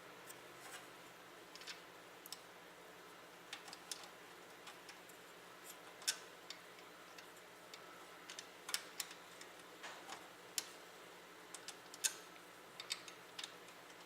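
Faint, scattered small clicks and ticks as screws are driven back in to fasten a graphics card's bracket to the PC case, a few of them sharper than the rest.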